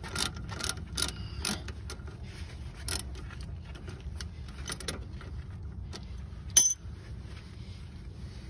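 Metal hand tools clicking irregularly on a rear brake caliper bolt as it is loosened and turned out, with one sharp metallic clink about six and a half seconds in, over a steady low hum.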